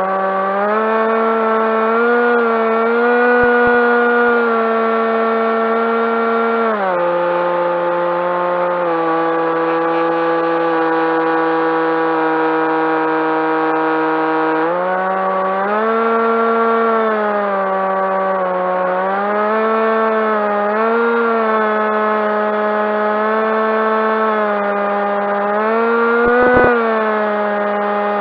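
Skywalker RC plane's electric motor and propeller whining steadily, the pitch rising and falling with throttle. It climbs at the start, drops about seven seconds in and holds lower until about halfway, then climbs again and wavers.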